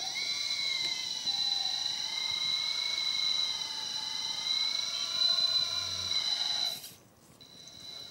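Electric hydraulic pump of a model truck crane whining steadily under load as the telescopic arm extends, its pitch wavering slightly. It cuts off abruptly about seven seconds in.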